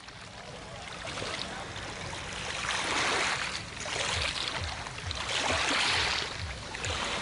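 Sea waves washing in, fading in at the start, then swelling and falling about four times.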